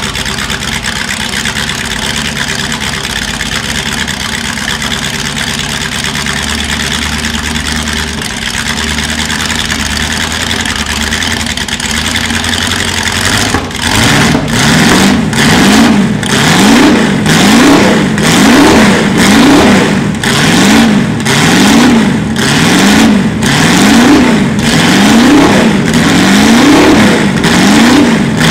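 A De Tomaso Pantera GT4's 5.8-litre Ford 351 Cleveland V8 idles steadily. About halfway through it starts being revved over and over, about once a second, each rev rising and falling in pitch.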